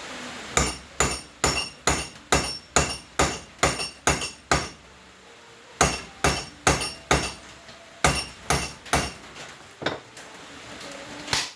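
Hammer blows on steel, about twenty sharp ringing metallic strikes in runs of roughly two a second, with short pauses between the runs: a screw extractor (easy out) being driven into a rusted, broken-off spark plug in the cylinder head.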